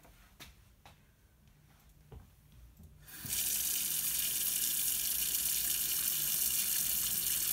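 A tap is turned on about three seconds in, and water runs steadily into a sink for hand washing. Before that there are only a few faint handling clicks.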